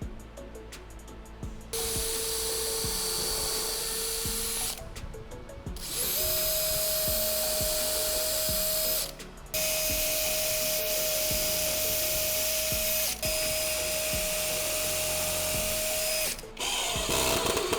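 Electric power tool motor running in four bursts of a few seconds each, with a steady whine. The first burst is lower in pitch. The next three are higher, and the first of these rises quickly to speed as it starts.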